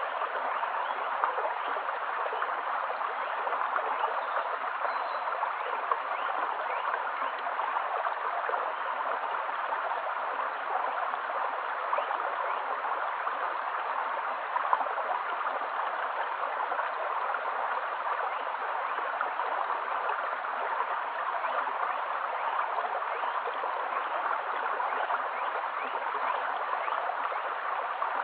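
Shallow stream flowing steadily over stones, a continuous gurgle of running water.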